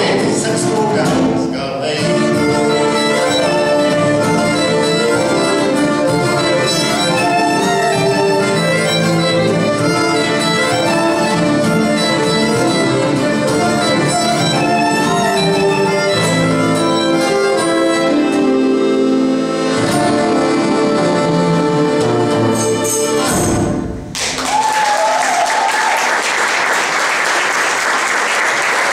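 Acoustic folk band playing a lively tune on accordion, flute, fiddle and acoustic guitar. The tune ends about 24 seconds in, and the audience breaks into applause.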